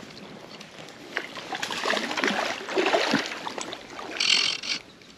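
A hooked trout splashing and thrashing at the water's surface near the bank as it is played in on a fly rod, with the biggest splash a little after four seconds in.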